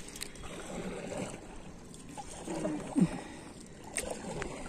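Water lapping and trickling against a small rowboat as it is paddled, with a few light knocks.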